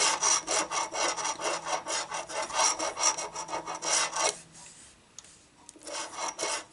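Coin scratching the coating off a paper lottery scratch-off ticket in quick rasping strokes, about four a second. The strokes pause for a moment, then a few more come near the end.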